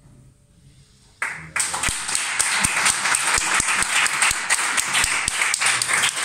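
Audience applause: after about a second of hush, clapping breaks out suddenly and keeps going, dense and steady.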